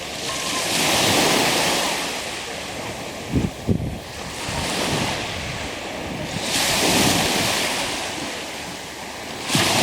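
Black Sea waves surging onto the beach and drawing back, four swells of surf noise a few seconds apart. A few brief low thumps come about three and a half seconds in.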